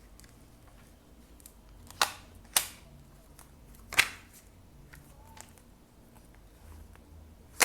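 Tarot cards being handled: four sharp snaps of card stock, a pair about two seconds in, another a couple of seconds later and one at the end.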